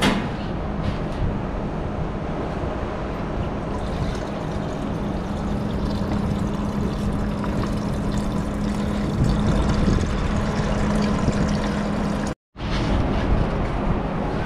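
Steady machinery rumble and hiss with a constant low hum, the kind of noise that fills a room of running diesel generator plant. The sound cuts out for a moment near the end.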